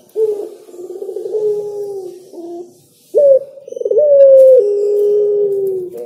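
Caged derkuku (collared dove) cooing: two long, low coos, the second louder and starting about three seconds in.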